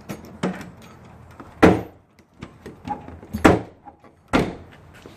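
BMW E36 M3 trunk lid being shut, making a series of sharp thumps, the loudest about a second and a half in. The lid is not catching: the rusted latch is not coming down far enough.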